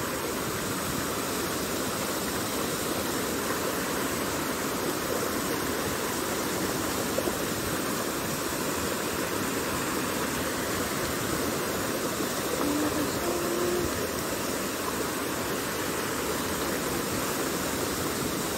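Small, fast-flowing stream rushing over rocks: a steady sound of running water.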